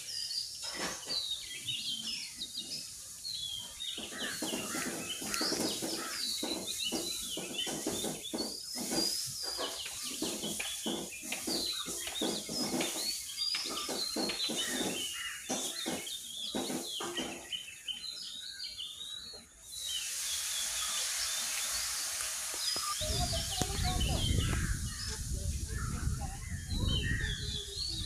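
Many small birds chirping and calling in rapid, overlapping notes. Irregular short clicks run under them through the first half, and a low rumble comes in about three quarters of the way through.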